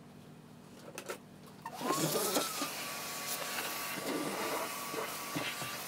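A small handheld vacuum cleaner switched on about two seconds in: its motor whines up to a steady high pitch over a rush of air and keeps running. A couple of faint handling clicks come before it.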